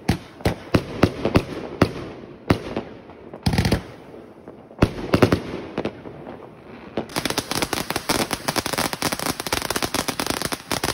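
Consumer fireworks. A Funke Weißblinker-Dahlien firework cake fires a rapid series of sharp bangs, with a louder dense burst about three and a half seconds in. From about seven seconds in there is a dense, very fast crackling, and a Röder Drachenfeuer ground fountain is spraying sparks near the end.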